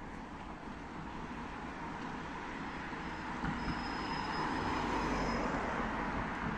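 Road traffic: a car drives past close by, its tyre and engine noise swelling to a peak about four to five seconds in, over the steady hum of more traffic coming up the street.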